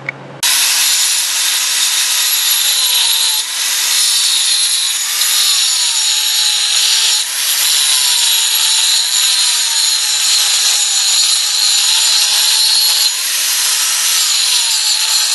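Angle grinder with a 1/8-inch grinding wheel grinding the slag and high spots out of a root-pass weld on 6-inch schedule 40 steel pipe: a loud, steady grinding hiss over a motor whine that wavers up and down in pitch. It starts abruptly about half a second in.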